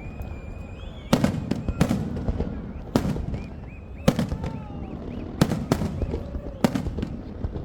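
Aerial fireworks bursting: sharp bangs about once a second, some in quick pairs, with thin whistling tones between them.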